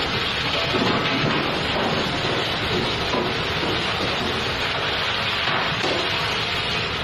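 Pre-rinse spray hose hissing steadily as water is sprayed onto stainless steel pots and pans at the pot-wash station.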